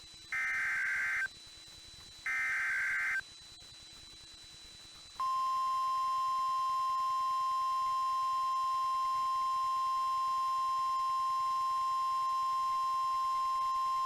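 Two bursts of EAS SAME header data, each a harsh digital screech about a second long, in the first few seconds. About five seconds in, the NOAA Weather Radio 1050 Hz warning alarm tone begins and holds steady for about nine seconds. This is the alert signal that comes before a severe thunderstorm warning broadcast.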